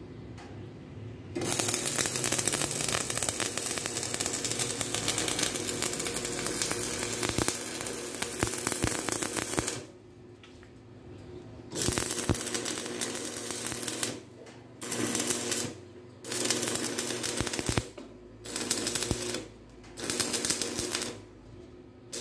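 Electric arc welding: the arc crackles and sizzles in one long run of about eight seconds, then in five shorter welds of one to two seconds each with brief pauses between them, as the joints are fully welded.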